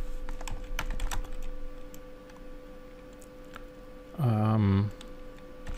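A few computer keyboard keystrokes in the first second and a half, typing a short word, over a steady low hum. About four seconds in there is a brief held 'mmm' of a man's voice.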